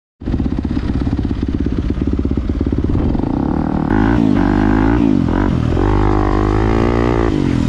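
2018 Yamaha YZ250F's single-cylinder four-stroke engine, at first an even low chugging at low revs. From about three seconds in the revs climb, then rise and fall repeatedly as the bike accelerates, dropping sharply near the end.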